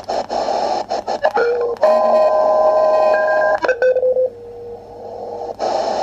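SI4732 shortwave receiver on USB with its narrowest 0.5 kHz filter, tuned slowly across the 20 m CW band. Band hiss is squeezed into a narrow pitch range and cut by brief dropouts at each tuning step. In the middle, steady whistling beat-note tones and a short run of keyed Morse pips from CW signals come through the sharp filter.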